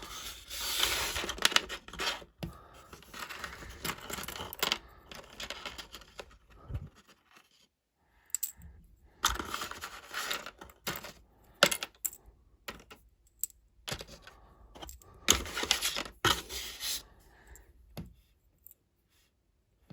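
Small plastic Lego pieces being handled and rummaged through: irregular clicking, rattling and scraping in two stretches with a short pause between.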